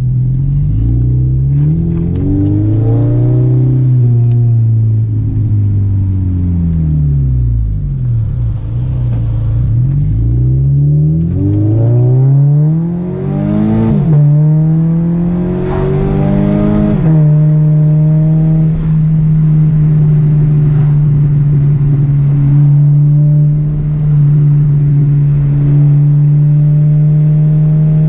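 Scion FR-S's 2.0-litre flat-four engine through a catless, non-resonated straight-pipe exhaust, heard from inside the cabin. The revs rise and fall several times, drop sharply twice around the middle as it shifts up, then settle into a steady in-cabin drone at cruising speed.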